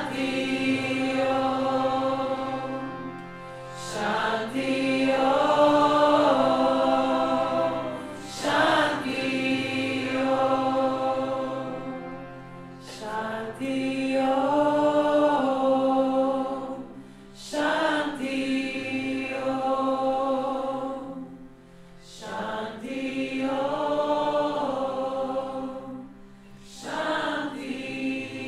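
Devotional kirtan mantra chanting: women's voices sing long held phrases of about four to five seconds each, with brief gaps between them, over a steady harmonium drone.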